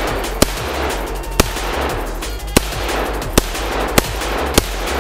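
Rifle fired in single shots, six sharp reports at uneven gaps of roughly half a second to a second, over background music with a heavy bass line.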